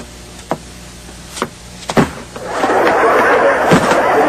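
A few knocks and thumps as a large suitcase is wrestled about on the floor, then loud studio audience laughter breaks out about halfway through and carries on.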